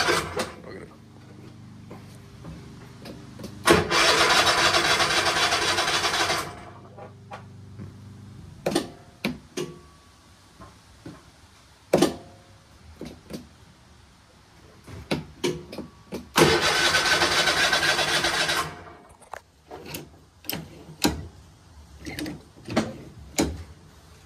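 Electric starter of a Bad Boy zero-turn mower's 747 cc engine cranking twice, about three seconds at a time, once about four seconds in and again about sixteen seconds in. Each attempt cuts off without the engine settling into a steady run. Scattered clicks and knocks come between the attempts.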